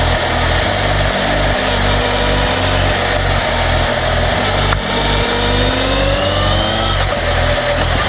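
House music with a deep, pulsing bass line and a steady beat; about five seconds in, a rising sweep climbs for two seconds and cuts off abruptly.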